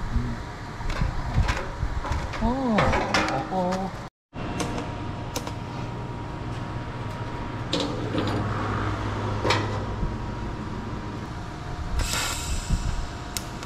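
Clinks and knocks of stainless-steel barrel parts being handled and tack-welded on a steel workbench, with a short hiss about twelve seconds in.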